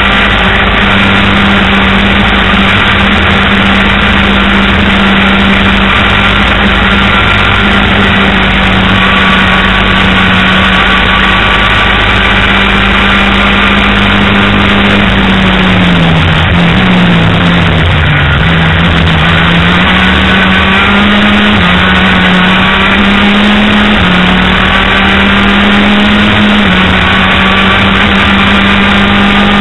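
Racing kart engine at high revs, heard from onboard the kart. It holds one steady high note, drops and climbs back about halfway through as the kart slows for a corner and accelerates out, then rises and falls slightly several times.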